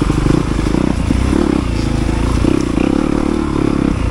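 Yamaha YZ250FX dirt bike's single-cylinder four-stroke engine running while the bike is ridden, its revs rising and falling with the throttle.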